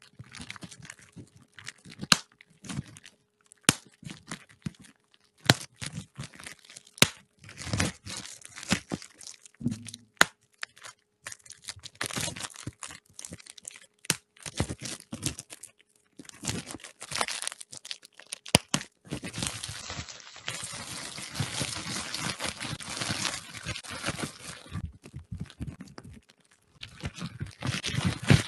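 Plastic bubble wrap crinkled and squeezed right against a microphone, with sharp single snaps of bubbles popping every second or two in the first half, then longer stretches of dense crackling from about two-thirds of the way through and again near the end.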